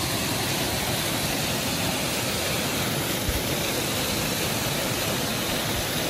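Water rushing steadily down a small stepped concrete cascade, a constant even hiss of falling water.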